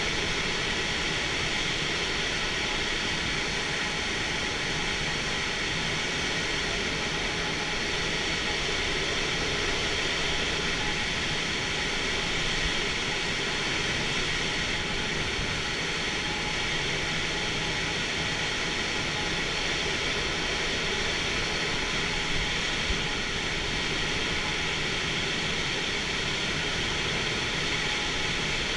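Steady rush of air in a glider's cockpit in flight: an even, unbroken hiss with a few faint steady tones under it.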